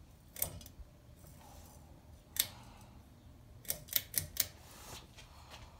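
Sharp clicks of a ceiling fan's switch being worked to start the fan on low speed: one about half a second in, another about two seconds later, then a quick run of five near the end.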